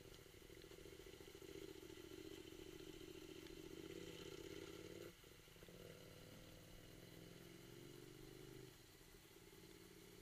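Faint engine of an adventure motorcycle running under way on a rough dirt road. The engine note strengthens, drops suddenly about five seconds in, then steps down again near the end.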